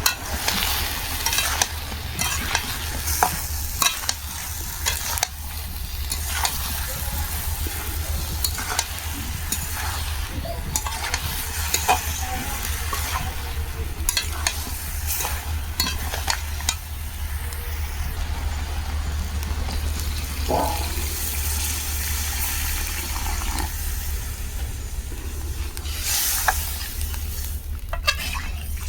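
A spatula stirring a fish curry with its spices as it sizzles in a kadai, with frequent sharp clicks of the spatula against the pan over a steady low hum.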